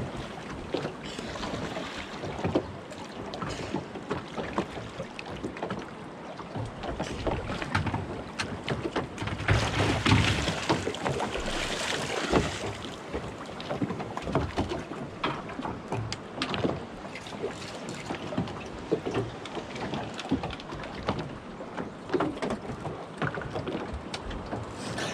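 Water lapping against the hull of a small fishing boat, with scattered knocks and clicks on board and a louder rush of noise lasting about three seconds, roughly ten seconds in.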